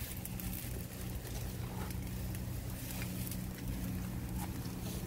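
Wood fire crackling in a cinder-block firebox under a cast-iron lid, scattered light snaps over a steady low hum.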